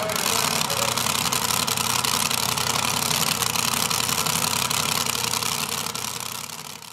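Modified two-wheel-drive pulling truck's engine idling steadily while the truck sits hooked to the sled, fading out near the end.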